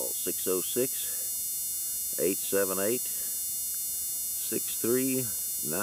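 Steady electrical mains hum with a thin high whine, under a man's voice speaking in short bursts.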